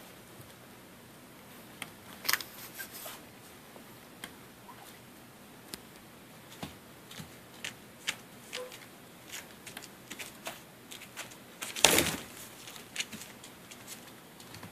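Paws and claws of a litter of three-and-a-half-week-old boxer puppies scuffling and padding on a quilted pad over a plastic tarp: scattered light clicks and scrapes, with a louder scuffle about two seconds in and the loudest one, a brief thump and rustle, about three quarters of the way through.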